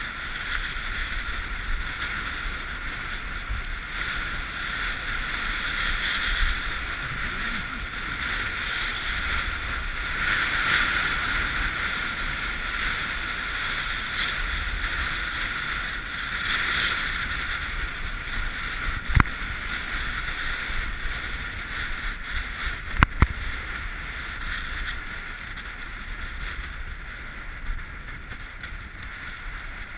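Snowboard sliding and carving on groomed packed snow: a steady scraping hiss that swells with each turn, with wind rumble on the body-mounted action camera's microphone. Three sharp knocks in the second half, two of them close together, and the slide quietens near the end.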